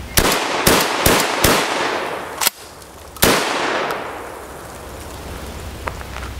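Remington Model 11 12-gauge long-recoil semi-automatic shotgun, barrel cut to 18.5 inches, fired in a rapid string of four shots about half a second apart. A sharp crack follows a second later, then a last shot about three seconds in whose echo dies away over the next second or two.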